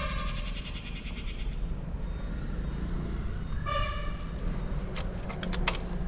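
Two drawn-out animal calls: a long one at the start and a short one about four seconds in. Near the end comes a quick run of sharp clicks and taps from handling, over a steady low rumble.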